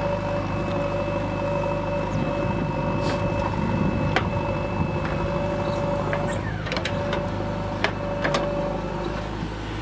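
JCB 3DX backhoe loader's diesel engine running steadily under working load while the backhoe arm digs, lifts and swings to dump soil. A few short sharp knocks come in the second half.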